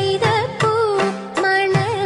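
Recorded South Indian classical-style song for a group dance: a singing voice with wavering ornaments over held drone-like notes and percussion strokes.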